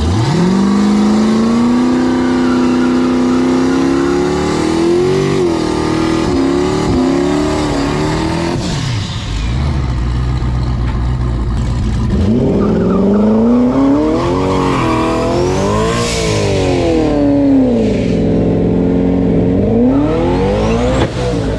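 Turbocharged street-race car engine pulling hard, its pitch climbing quickly and then held high for several seconds before dropping. After a short lull the engine note climbs again, peaks, falls, and rises once more near the end.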